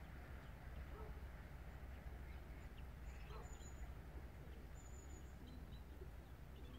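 Faint ambience: a steady low rumble with scattered distant animal calls and a few short high chirps.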